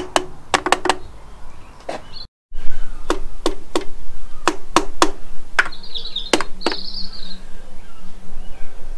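The carburettors of a Honda CB750 being tapped with a tool's handle as fuel first goes into them, to free float valves that may be stuck: a run of sharp, uneven knocks a few a second. A bird chirps a few times in the second half.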